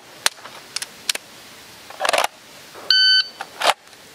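Shot timer start beep, one short electronic tone about three seconds in. It is set among sharp clicks and rustles of the pistol going into and coming out of the duty holster.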